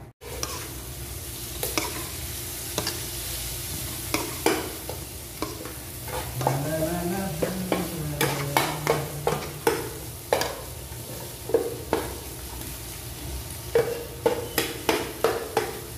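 Metal spoon stirring and scraping tuna curry in a pot over a steady sizzle of frying, with many sharp clicks of the spoon against the pot that come thickest about halfway through and again near the end.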